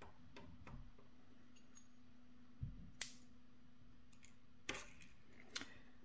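Faint, sparse clicks and taps of tweezers and small dimple-lock parts being handled, a handful spread over the few seconds with the sharpest about three seconds in, over a low steady hum.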